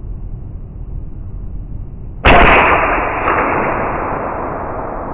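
A single shot from a Smith & Wesson Shield 9mm pistol fitted with a Liberty Mystic X suppressor, slowed to slow-motion speed, so it comes out as one sudden deep cannon-like boom with a long fading rumble. The 124-grain FMJ rounds are not subsonic, which is why the suppressed shot still sounds like a cannon.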